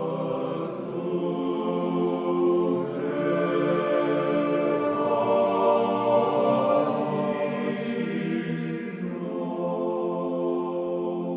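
Choral chant: voices singing slowly in long held notes, swelling toward the middle.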